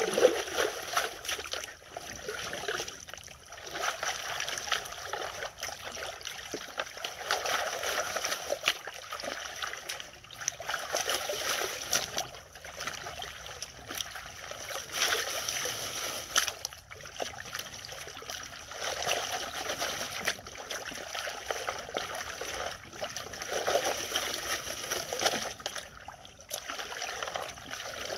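Water splashing and sloshing in repeated swells as dirt and gravel are washed in a gold pan to test it for gold.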